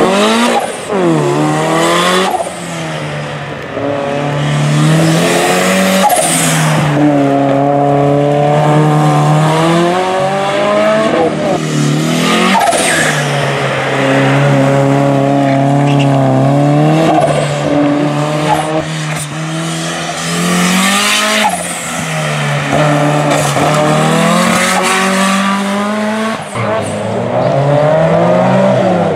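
Race cars running flat out on a tarmac sprint course: engines rev high and drop back again and again through gear changes and braking for corners, with tyre squeal as a car slides through a tight bend.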